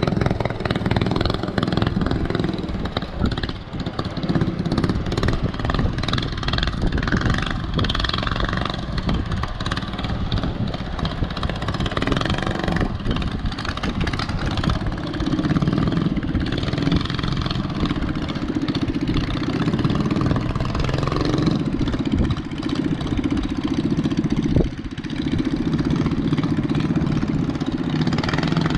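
An engine running steadily with a low, even hum, growing stronger through the second half.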